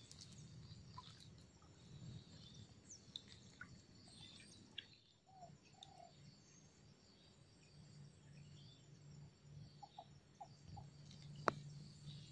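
Near silence with faint, scattered bird chirps and a faint steady high insect hum. One sharp click about eleven and a half seconds in.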